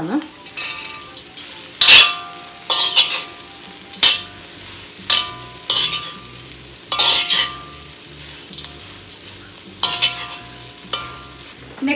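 Metal spatula stirring fried chicken pieces into scrambled egg and vegetables in a wok, with sharp scrapes and clanks against the pan every second or so, each ringing briefly. A light sizzle of frying runs underneath.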